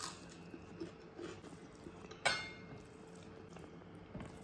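Eating by hand from ceramic plates: soft hand and mouth sounds, with one sharp ringing clink against a plate a little over two seconds in, over a faint steady hum.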